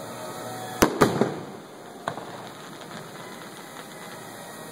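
Aerial fireworks shells bursting: a sharp bang just under a second in, quickly followed by two more, then a fainter bang about two seconds in.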